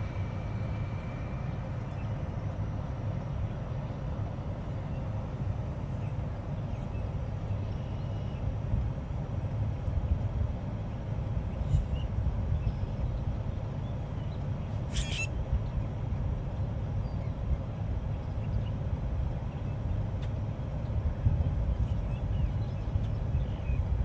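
Steady low background rumble, with a common grackle giving one short, harsh, squeaky call about fifteen seconds in.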